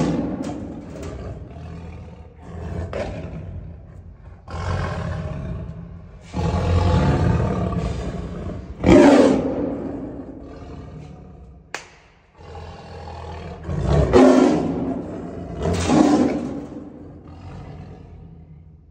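Tiger snarling and growling in a string of loud, separate bouts a second or more apart, with one sharp knock a little before halfway through.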